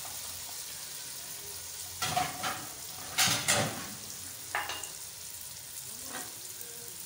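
Potato chunks sizzling in hot oil and tomato-onion masala in a metal pot, with a steady frying hiss. A wooden spoon scrapes and knocks through them in several strokes, the loudest about three seconds in.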